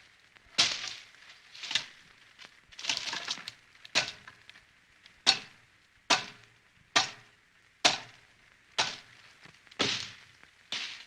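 Bolo knife chopping: about eleven sharp blade strikes, roughly one a second and slightly uneven, each a crisp crack that dies away quickly, with two close blows a little under three seconds in.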